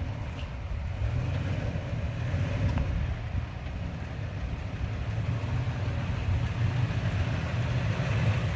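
Stock 2021 Toyota Tacoma TRD Off-Road's engine running low and steady as the truck crawls slowly over rock, getting gradually louder as it comes closer.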